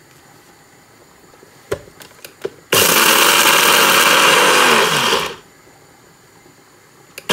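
Compact bullet-style blender grinding dry roasted whole spices and black salt into chaat masala powder. First there are a couple of clicks as the cup is seated on the motor base. Then the motor runs for about two and a half seconds and winds down, and it starts again at the very end.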